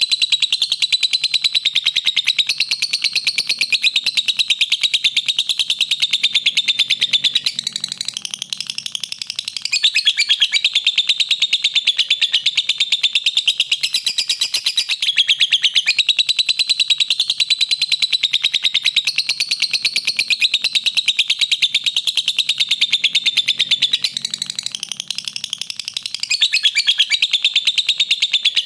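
Lovebird singing a long, continuous chatter of fast, high chirps with no pauses, easing off briefly about eight seconds in and again near the end.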